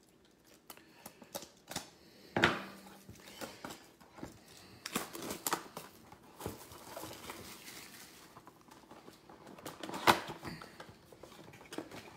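Plastic shrink-wrap on a trading-card box being cut and torn off by hand, crinkling, with scattered small clicks. Two sharper knocks stand out, about two and a half seconds in and again about ten seconds in.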